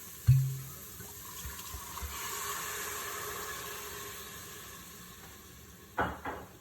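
A thump, then red wine poured into the hot pot of sautéed onions, garlic and herbs, hissing as it goes in. The hiss swells for a couple of seconds and then dies away. Two quick knocks near the end.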